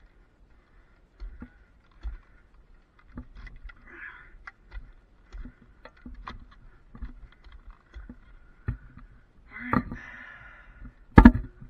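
Irregular clicks and knocks of a lineman's climbing hardware (carabiners, rope grab, lanyard) against the wooden pole and steel strand, with a louder knock near the end.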